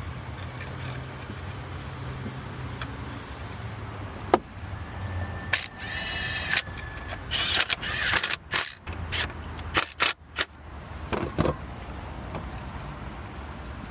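Scattered clicks, knocks and rustling of hands and tools working on parts under a pickup's hood, over a steady low hum. A short squeal comes about six seconds in, and the busiest handling is around seven to eight seconds.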